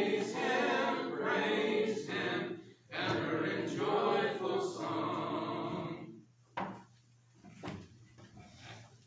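Congregation singing a hymn a cappella, many voices holding the closing phrases, stopping about six seconds in. A few scattered knocks and thumps follow as the room settles.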